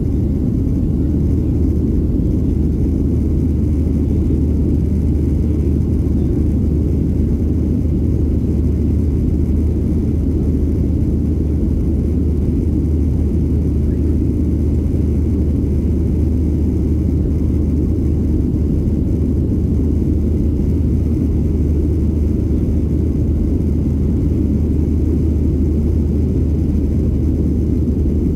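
Boeing 737-700's CFM56-7B jet engines at takeoff thrust, with rushing air, heard inside the cabin over the wing during the takeoff climb: a steady deep drone with a strong low hum.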